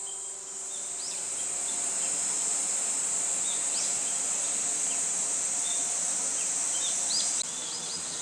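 Summer insects shrilling in a steady, high-pitched drone, with short bird chirps scattered through it. The drone drops off suddenly about seven seconds in.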